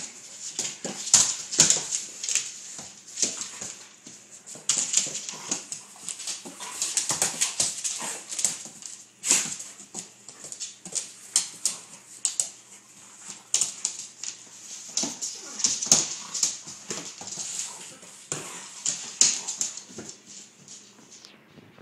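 A German Shepherd and a Doberman play-wrestling on a hardwood floor: a dense, irregular run of claw clicks and scuffles, mixed with the dogs' own vocal sounds.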